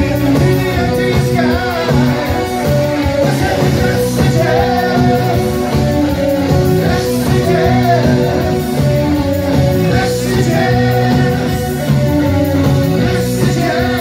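A rock band playing live in a club, with a male lead vocal over electric guitar, bass and drums at a steady beat.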